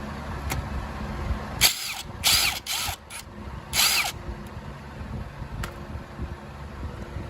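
Cordless power driver running in four short bursts, spinning out timing-cover bolts.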